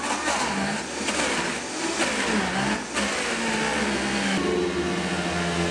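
Vitamix blender motor running at high speed, pureeing frozen bananas into a soft-serve ice cream as the tamper is pushed down into the jar. Its pitch dips and recovers several times as the frozen fruit loads the blades, then steadies and cuts off suddenly at the end.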